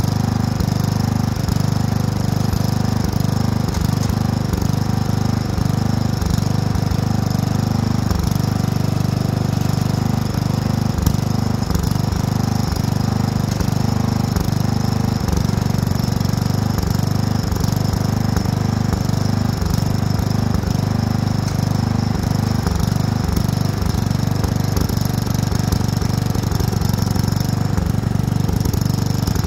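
Lawn tractor engine running steadily, a constant low drone.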